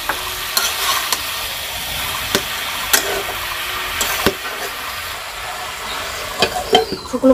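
Food sizzling as it fries in a pan, stirred with a utensil that knocks and scrapes against the pan about ten times at uneven intervals. The hiss thins over the last couple of seconds.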